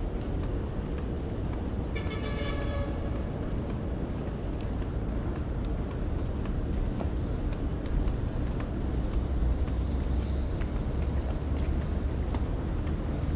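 Outdoor city traffic sound: a steady low rumble of passing vehicles, heavier in the second half. About two seconds in there is a short pitched tone, like a brief horn toot.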